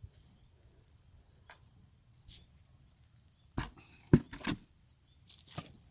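Crickets trilling high and thin in blocks of about a second, with a few short knocks and rustles near the middle, the sharpest just after four seconds in.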